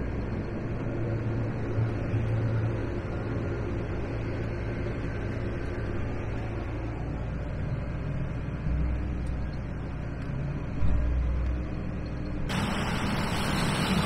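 John Deere combine running in a corn field, heard from inside the cab as a steady, muffled low engine and machinery drone. Near the end it gives way abruptly to a brighter, noisier sound of the combine working, heard from outside.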